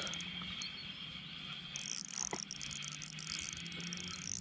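Shimano Stradic CI4+ spinning reel being cranked to bring in a hooked fish, a steady winding whirr with fast fine clicking from about two seconds in. A steady high chirring of insects runs underneath.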